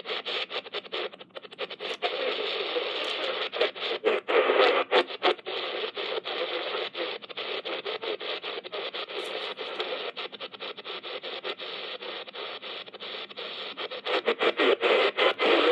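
Static and hiss from the Raynic CR-1009 emergency radio's speaker as its shortwave band is tuned, with no station clearly received. The noise cuts out briefly again and again as the dial is turned.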